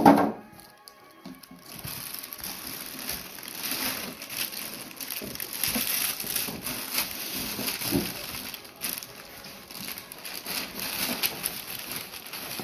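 Clear plastic wrapping crinkling and rustling as hands work it around a water heater inside a cardboard box, with cardboard scuffing. A loud thump at the very start.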